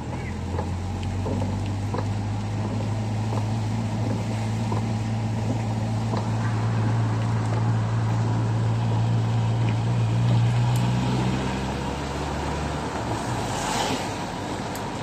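Car driving on a wet, rain-soaked road, heard from inside the cabin: a steady low engine and road drone with the hiss of tyres on wet pavement. The drone eases off a couple of seconds before the end, and a short rush of noise follows.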